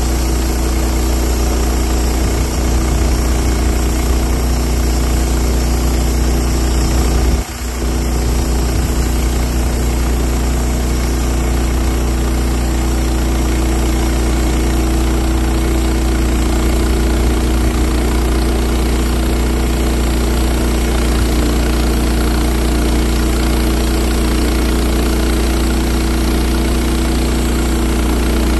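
Wood-Mizer portable band sawmill's engine running steadily, with a brief dip in loudness about seven and a half seconds in.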